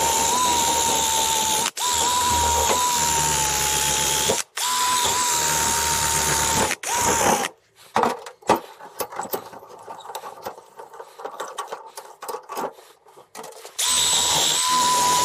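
Cordless drill running at a steady speed with a constant whine, cutting out for a moment twice. It stops for several seconds in the middle, with scattered clicks and knocks of handling, then starts running steadily again near the end.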